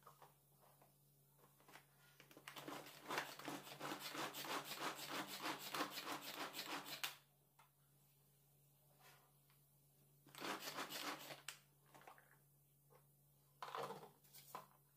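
Manual pull-cord food chopper spinning its blades through onions in a plastic bowl: a fast run of rasping strokes for about four seconds, then two shorter bursts.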